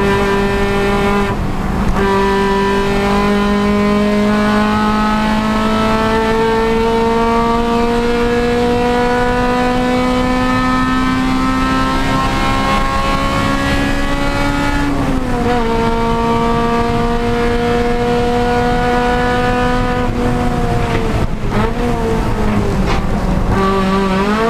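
Honda Civic Si race car's four-cylinder engine under hard acceleration, its pitch climbing slowly through a long pull after a brief lift about a second and a half in. Around the middle the pitch drops and holds, as at a gear change. Past twenty seconds it falls under braking, with short blips as on downshifts, then climbs again near the end.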